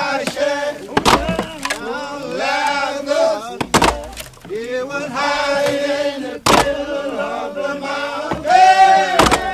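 Background music: a slow song with long held sung notes and a hard beat about every three seconds.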